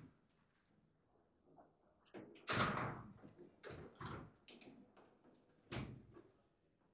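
Sharp knocks and thuds of play on a table football table: the ball struck by the rod figures and knocking against the table, with rods clacking. The loudest knock comes about two and a half seconds in, with several more up to about six seconds.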